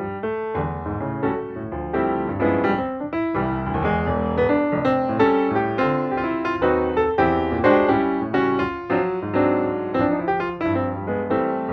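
Background instrumental music: a quick, busy run of notes, one after another.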